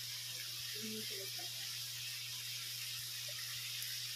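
Pork and fried tofu sizzling steadily in a stainless steel pan, a constant frying hiss over a low steady hum.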